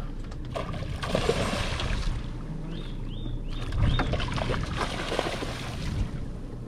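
Water splashing and sloshing beside a small boat over a low steady rumble, in two spells, while a hooked fish is being played. A bird calls three quick short chirps about three seconds in.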